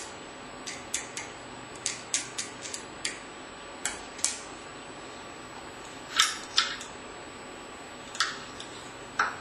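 Plastic toy spoons clicking and tapping against small plastic cups and a strand of beads during pretend play: irregular light clicks, a few louder ones about six seconds in and near the end.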